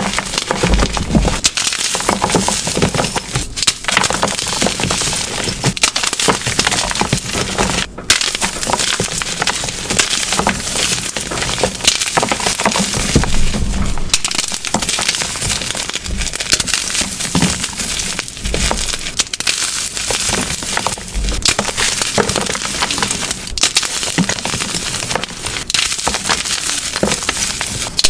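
Glitter-filled gym chalk cubes being squeezed and crushed by hand: a dense, continuous crunching and crumbling of the chalk, with many sharp little cracks as the blocks break apart.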